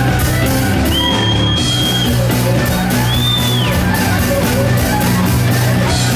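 Live folk band playing an instrumental: fiddle, guitar, drum kit and upright double bass over a steady driving drum beat, with two high held notes about one and three seconds in.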